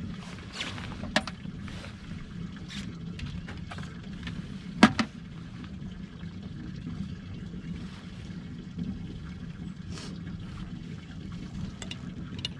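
Water trickling and dripping as a wet trot-line is hauled in by hand and wound onto a line winder, with light clicks and a sharp knock about five seconds in. A steady low hum runs underneath.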